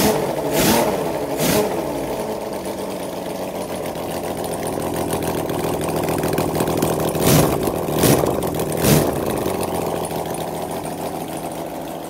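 Custom 1396cc six-cylinder engine, built from a 1975 Kawasaki Z1 four with a 120-degree crank for even firing, running on a bench with no exhaust headers fitted. It idles and is blipped: three quick revs at the start, then three more about seven to nine seconds in.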